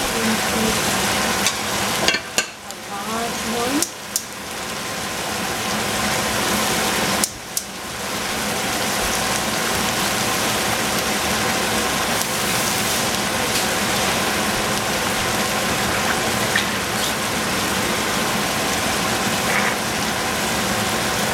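Ground meat sizzling as it fries in a stainless steel saucepan: a steady hiss that drops out briefly a few times in the first eight seconds.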